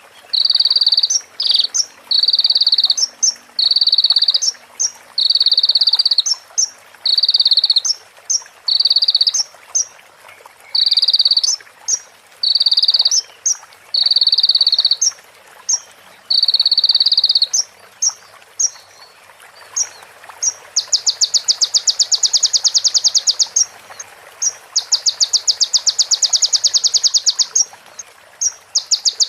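A sunbird (konin, kolibri ninja) singing high, buzzy notes repeated about once a second. From about two-thirds of the way in it switches to long, rapid trills a few seconds each, phrases mimicking a female prinia and ciblek.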